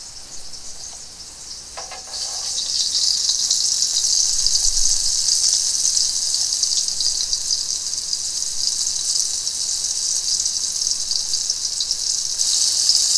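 Garfish balls frying in hot olive oil in a cast-iron pot: a steady hiss of sizzling that grows louder about two seconds in and again near the end.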